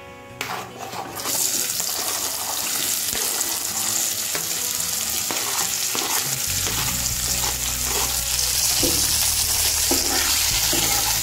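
Chopped onions hitting hot mustard oil in a kadhai and sizzling with a loud, steady hiss that starts about a second in, with short clicks and scrapes from a steel spatula stirring them. A low steady hum joins about halfway through.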